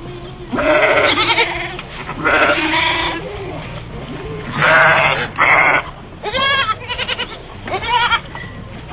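Goats bleating, about seven separate loud bleats, several with a wavering quaver.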